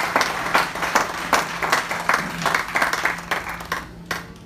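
Crowd applause with loud single claps close by, about two or three a second, dying away about four seconds in.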